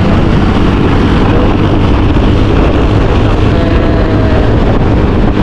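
Wind buffeting the microphone on a moving motorbike: a loud, steady low rumble with the vehicle's running noise underneath.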